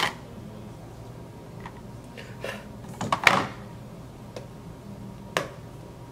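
Small clicks and taps of plastic makeup palettes and a metal eyeshadow pan being handled as the pan is pried out and set into a magnetic palette, with the loudest cluster of clicks about three seconds in and a single sharp click near the end.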